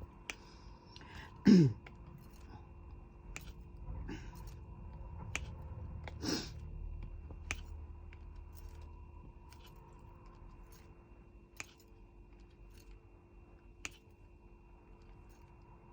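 A woman coughs once hard about a second and a half in, then coughs again more softly about six seconds in. Sparse light clicks of a diamond-painting drill pen on the canvas run through.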